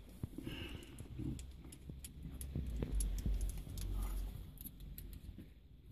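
Small metal parts of a short-shift kit clicking and clinking in the hands as a threaded piece is unwound, with a low rumble around three to four seconds in.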